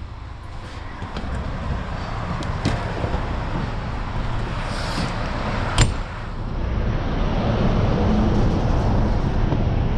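A vehicle engine running with a steady low rumble that grows louder about seven seconds in, with a sharp click just before the rise.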